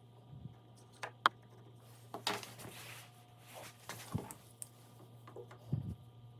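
Scattered light clicks and taps of wooden pieces and tools being handled on a workbench, with a short scrape a little after two seconds in and a couple of low knocks later on, over a steady low hum.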